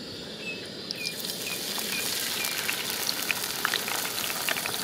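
Hot oil sizzling and crackling in a kadai. The frying gets louder and fuller about a second in and stays that way while a wet paste is tipped into the oil.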